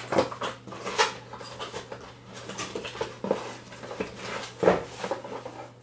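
Hands rummaging in a cardboard box: packaging rustling and crinkling, with a few sharp knocks of cardboard, the loudest nearly five seconds in.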